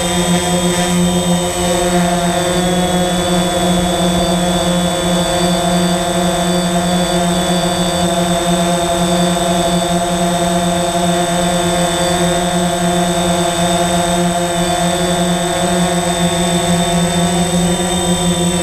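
DJI Phantom quadcopter's four brushless motors and propellers running in flight, heard at very close range from the GoPro mounted on the drone. It is a steady, multi-tone drone hum with a thin, high whine over it.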